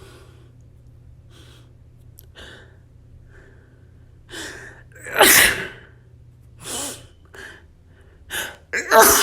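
A person sniffling and drawing short gasping breaths, then sneezing loudly about five seconds in. More quick gasps follow, and a second sneeze comes at the very end.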